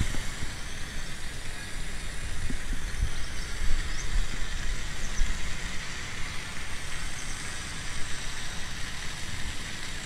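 Steady low outdoor rumble with a few faint, high bird chirps.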